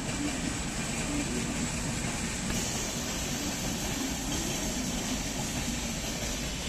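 Indian Railways LHB passenger coaches running along the track: a steady rumble and rush of wheels on rail.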